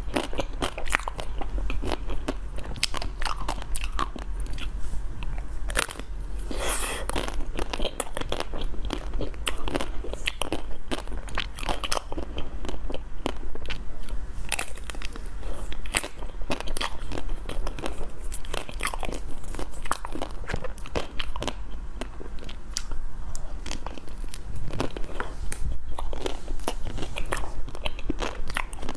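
Close-miked biting and chewing of a frozen chocolate-coated ice cream bar: the hard chocolate shell cracks and crunches in many irregular sharp snaps, with a louder crunching stretch about seven seconds in.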